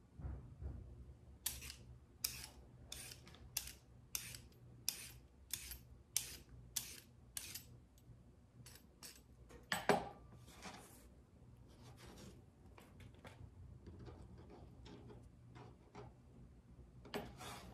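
Vegetable peeler scraping down a raw carrot in quick strokes, about two a second for several seconds. A single knock about ten seconds in, then a few softer scrapes near the end.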